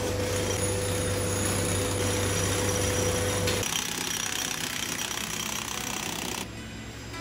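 Hand-held electric demolition hammer breaking up concrete around steel rebar, a continuous rapid hammering. A steady hum runs under it for the first three and a half seconds, then the sound changes abruptly to a brighter stretch of chipping.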